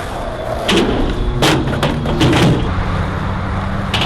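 Skateboard wheels rolling on concrete, with several sharp clacks and thuds as the board strikes the ground.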